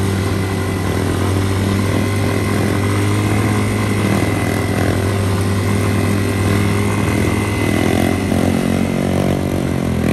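Motorcycle engine running steadily while riding, a loud low drone with small shifts in pitch near the end.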